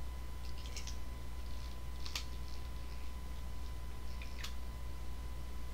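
A few scattered clicks and crinkles from plastic water bottles and drink-mix packets being handled and capped, over a steady low hum.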